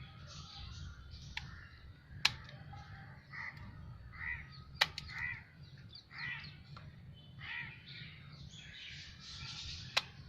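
A bird calling over and over, short calls about once a second, with three sharp clicks scattered among them.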